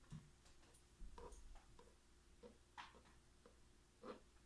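Near silence, with faint scattered ticks and light scrapes of a metal spoon texturing the top of soft soap batter in a loaf mold.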